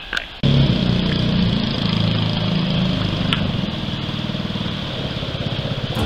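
Mud motor's hopped-up Honda GX200 single-cylinder engine (stage 1 kit) running steadily under power on a long-tail boat drive. The sound cuts in suddenly about half a second in.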